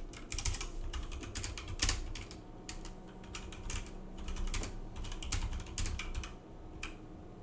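Typing on a computer keyboard: a quick, irregular run of key clicks, typed as a test for key chatter, where one key press registers several times.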